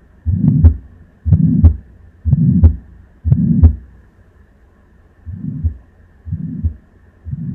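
Simulated heart sounds of aortic stenosis at about one beat a second: each beat has a first and second heart sound with a harsh, loud systolic murmur filling the gap between them. After four beats there is a short pause, and the beats return quieter.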